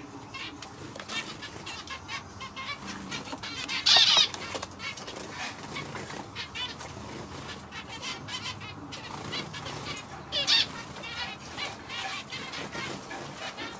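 Male zebra finch singing: a continuous run of rapid short notes, with two louder bursts about four seconds in and again about ten seconds in.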